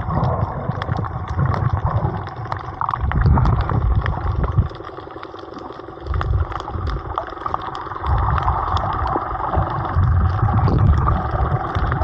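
Underwater sound picked up by a camera in its housing while snorkelling over a reef: a heavy, uneven low rumble of water churning against the housing, easing off for a moment around the middle, with many scattered crackling clicks throughout.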